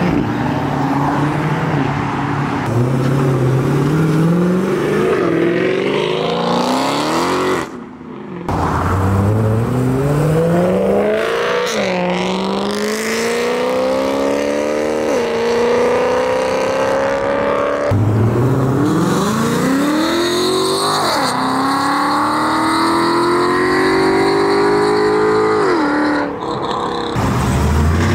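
Several performance cars accelerating hard one after another, among them an Audi TT RS and a BMW M3. Each engine climbs in pitch through the revs, drops sharply at each upshift and climbs again, with short breaks between the cars.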